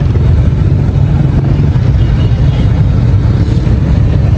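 Hot oil sizzling as battered fish roe and fish pieces deep-fry in a large shallow street-stall karahi, over a loud, steady low rumble.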